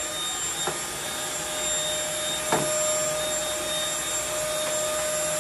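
Corded stick vacuum cleaner running steadily with a constant whine as it is pushed over a wood floor, with two light knocks, about a second in and halfway through.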